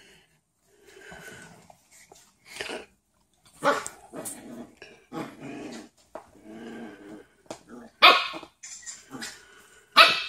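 Corgi puppy barking and growling at a dog lying in its bed, demanding the bed back: short high barks, the loudest three spread out with the last near the end, and rough growls in between.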